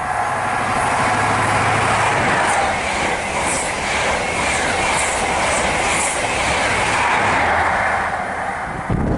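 Train passing close by at speed: steady rushing wheel-on-rail noise with a clickety-clack over the rail joints.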